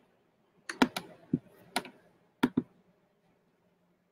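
About half a dozen sharp clicks and taps on a computer keyboard, spread over about two seconds.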